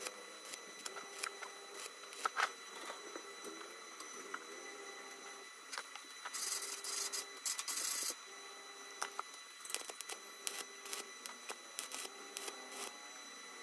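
Stick-welding arc from a small inverter welder, crackling and spitting irregularly as a bead is run on steel. About six seconds in there is a louder scratching hiss lasting about two seconds.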